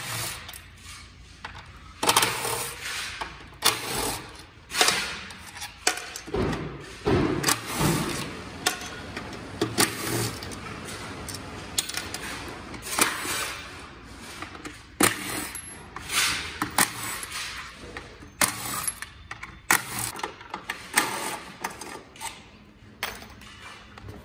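Cordless impact driver backing out the steel bolts that hold the battery module brackets to an EV battery pack case, in many short bursts of a second or less. Loose bolts clink as they drop into a plastic jug.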